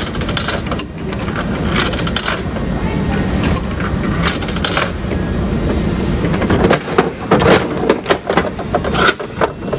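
Coins dropping into a Bandai gacha capsule machine, then its coin dial being cranked round with a run of loud clicks near the end, against steady store background noise.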